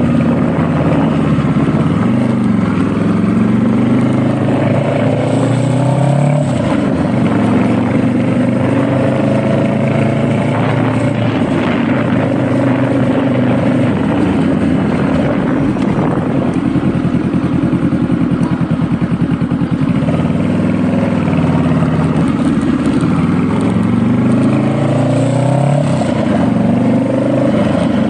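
Motorcycle engine under way, rising in pitch as it accelerates from about two seconds in, dropping sharply at a gear change a few seconds later, then running steadier before rising and dropping again near the end.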